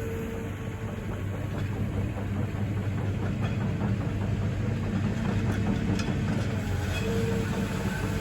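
Cat 313 excavator's diesel engine running steadily, with the clatter and clank of its steel tracks and undercarriage as it moves.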